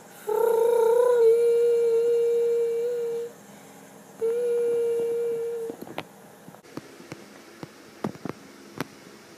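Telephone ringing tone after a number is dialled: a long steady tone, a pause of about a second, then a shorter one at the same pitch. A few light clicks and taps follow.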